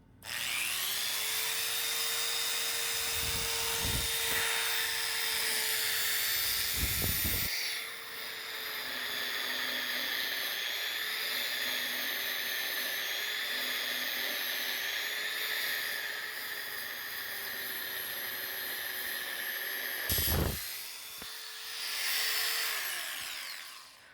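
Electric power sander starting up and running with a steady whine, its sound changing about eight seconds in, with a few low bumps early on. It cuts out briefly near the end, runs again, then winds down.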